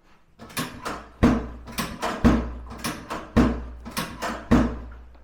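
A rapid, regular series of sharp knocks and heavy thumps, about two a second. A deeper, heavier thump falls roughly once a second with lighter knocks between, and each heavy thump leaves a short low rumble behind it.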